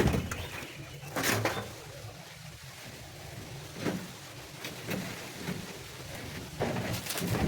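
A few scattered knocks and clatters, with the loudest near the start, about a second in, and a cluster near the end, over a faint steady low hum.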